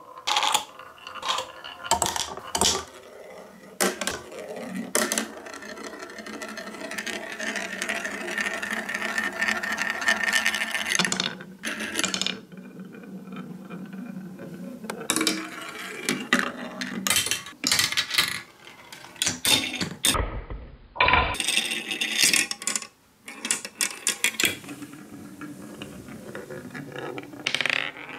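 A marble rolling and clattering through a marble run of wooden tracks and cut plastic bottles: rattling along wooden chutes, with many sharp clicks and knocks as it drops and hits bends. A steady, even rolling stretch runs for several seconds, from about five seconds in to about eleven.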